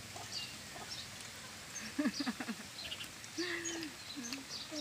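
Small birds chirping, with a few short clucks from chickens about two seconds in and again near the end.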